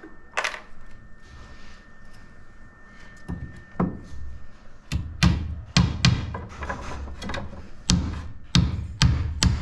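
Hammer driving a nail into a thin wooden strap on concrete formwork: about ten uneven blows, sparse at first and coming faster in the second half. The nailing splits the strip.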